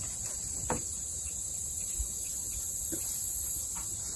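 Steady, high-pitched insect chorus, with a few faint knocks about a second apart.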